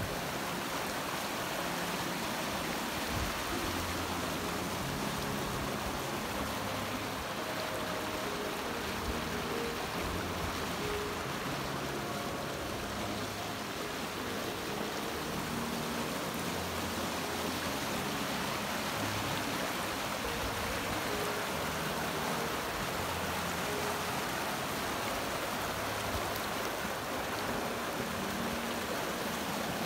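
Small, shallow mountain creek running over rocks: a steady rush of water.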